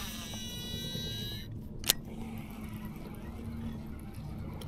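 Baitcasting reel spool spinning as a cast pays out line: a thin high whine for about a second and a half that bends in pitch as it dies away, then one sharp click about two seconds in, over a low steady hum.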